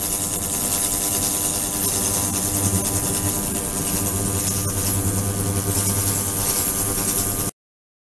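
Immersible ultrasonic cleaning transducer running in a water tank: a steady buzzing hum with a high-pitched whine and many steady tones. It cuts off suddenly near the end.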